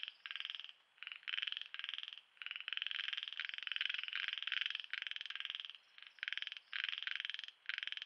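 Frogs calling at night: a continuous chorus of short, rapidly pulsed rasping calls, each lasting under half a second, following one another with brief gaps.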